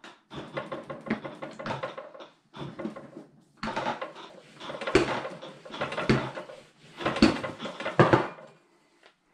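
A rolling pin rolled back and forth over tortilla dough on a floured wooden tabletop: a series of short rolling strokes with light knocks between them. A sharper knock comes about eight seconds in as the pin is set down.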